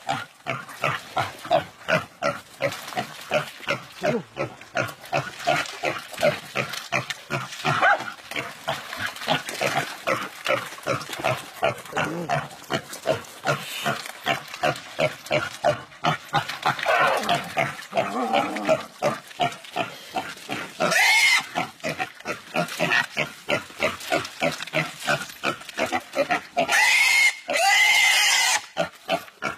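A pig squealing and grunting in rapid, rhythmic pulses while dogs bite and hold it: the distress cries of an animal under attack. In the last third it breaks into a few long, high-pitched screams.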